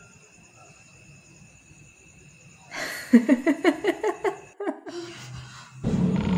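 A person laughing: a quick run of ha-ha pulses lasting about two seconds, with a short vocal sound after it. Near the end a loud, even rushing drone with a low hum sets in.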